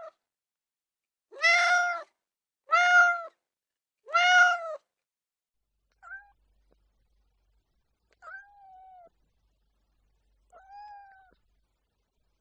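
Domestic cat meowing: three loud meows about a second and a half apart, then three fainter, shorter meows a couple of seconds apart.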